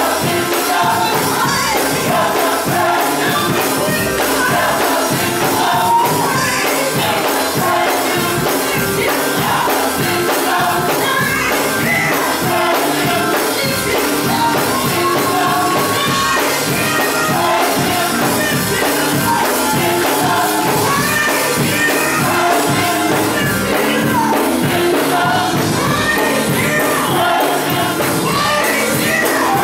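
Gospel choir singing with a live band, tambourine and drums keeping a steady beat.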